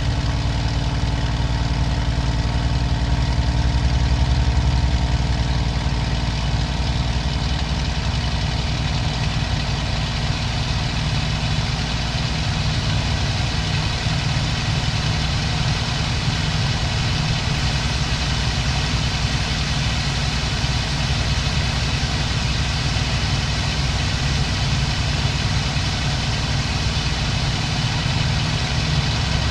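Daimler-Benz DB 605 inverted V12 engine of a Messerschmitt Bf 109G-2, heard from the cockpit in flight during aerobatics. It runs at a steady 2300 rpm, and its tone holds even as the airspeed rises and falls, because the automatic propeller control keeps the revs constant.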